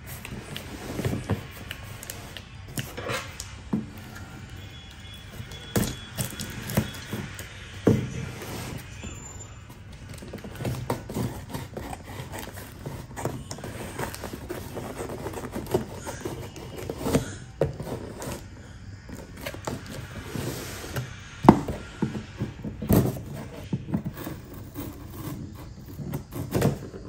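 Scissors cutting through the packing tape on a cardboard box, with irregular knocks, taps and scrapes as the box is handled; the loudest knock comes a little past the middle.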